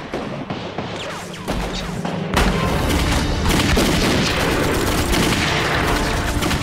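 Battle gunfire from many rifles and pistols firing at once, thickening into a continuous fusillade about two and a half seconds in.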